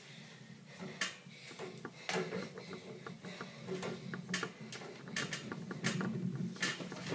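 Irregular knocks and bumps, roughly one a second, over a steady low hum.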